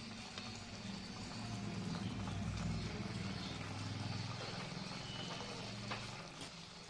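Tangra fish curry gravy boiling in a kadai: a low rumble that swells over the first few seconds and then eases, with faint scattered bubbling pops.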